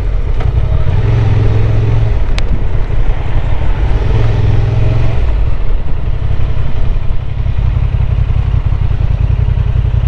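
Honda Transalp 750's parallel-twin engine running under the rider while riding slowly through town streets. The note holds steady twice, about a second in and again around four seconds in, then turns lower and uneven in the second half as the bike slows toward a stop.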